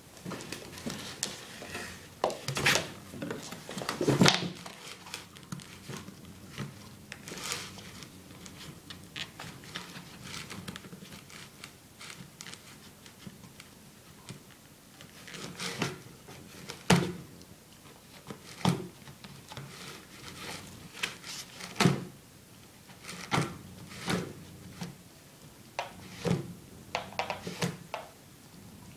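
Rhodesian Ridgeback puppy chewing and tearing cardboard from a shipping box: irregular crunches, crackles and taps at uneven intervals, a few louder ones about 4, 17 and 22 seconds in.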